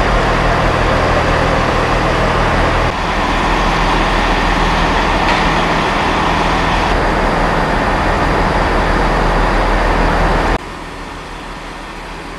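Diesel multiple unit engine running at a railway station, heard across three shots joined by abrupt cuts: a steady low engine hum first, a louder and noisier stretch from just under three seconds in, then a sudden drop to a quieter level about ten seconds in.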